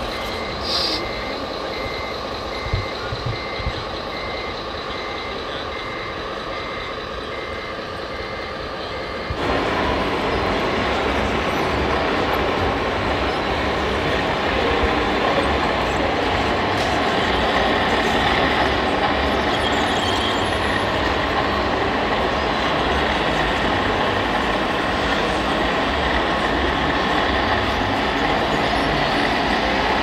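RC dump truck's reversing beeper sounding a steady, evenly spaced beep over a faint running motor. About nine seconds in the beeping stops and a louder, steady mix of hall noise and model-truck running sound takes over.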